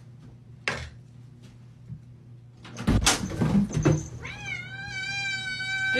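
A door latch clicks as the door is opened, a few thumps follow, then a cat gives one long, drawn-out yowl starting about four seconds in, rising at first and then held.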